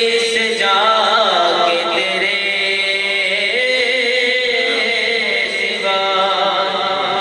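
A man's voice singing a devotional hamd in Urdu, holding long drawn-out notes that bend and ornament slowly between the words of the refrain.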